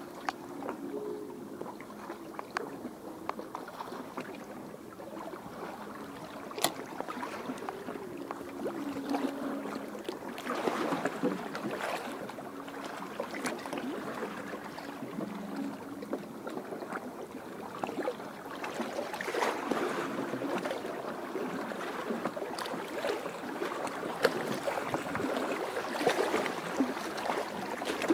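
Small waves lapping and splashing, swelling in surges every several seconds, with a few sharp clicks.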